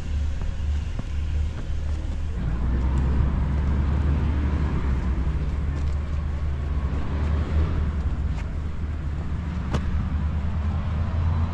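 MG Midget Mk3 sports car on the move: a steady low engine and road rumble, with a couple of light clicks.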